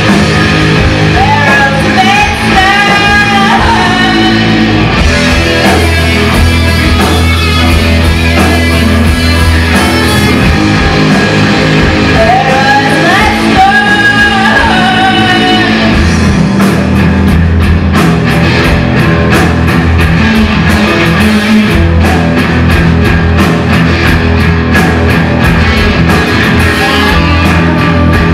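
Live rock band playing: electric guitars and a drum kit, with a singer's voice in two sung lines in the first half. From about halfway through the playing is instrumental, with busier drum and cymbal hits.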